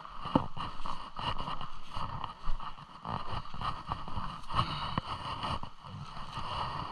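Steady rush of water below a river dam, with irregular close knocks and rustles of fishing gear and a tackle bag being handled.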